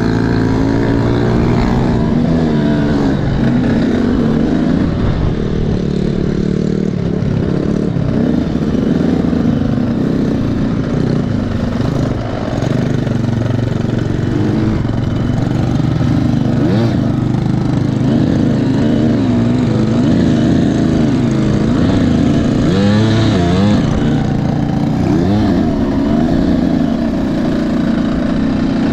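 300cc two-stroke enduro motorcycle engine heard from on the bike while it is ridden, its pitch rising and falling again and again as the throttle is opened and closed.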